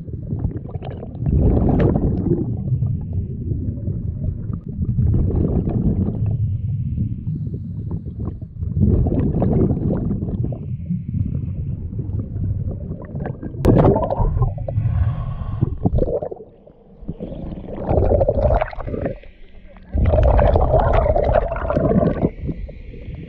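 Scuba diver's breathing through a regulator underwater: gurgling rushes of exhaled bubbles that come in surges every few seconds, heard through a camera in its underwater housing.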